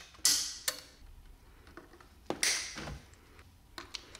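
Light clicks and short rustles of a pair of side cutters being handled and set onto the safety wire at the oil drain plug, with a few small sharp clicks near the end.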